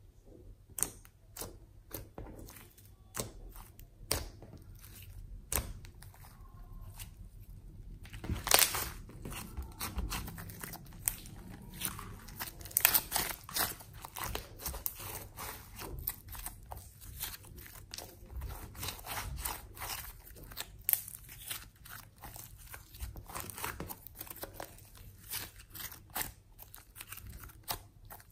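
Hands kneading, squeezing and stretching glossy slime mixed with crumbled eyeshadow powder: irregular sticky crackles and pops, densest and loudest around eight to nine seconds in and again near thirteen seconds.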